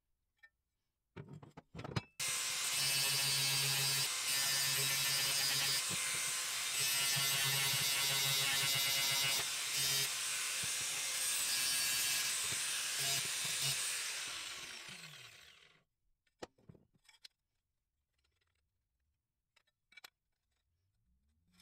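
Electric angle grinder cutting into the steel bracket of a motorcycle's stock tail piece, running at full speed for about twelve seconds and then spinning down as it is switched off. A few clicks come before it starts, and there are light knocks of the metal part being handled afterwards.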